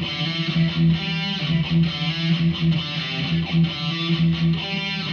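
Electric guitar played through a Behringer V-AMP PRO amp-modelling processor with a distortion preset, playing a rhythmic riff built on a repeated low note.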